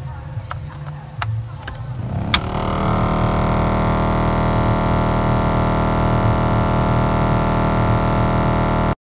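Mitsubishi Fuso Fighter truck's A/C blower motor and fan running with a low rumble. After a click about two seconds in, it goes to a loud, steady droning buzz, then cuts off suddenly near the end. The noise and vibration come from a blower fan packed with dust, the motor itself being sound.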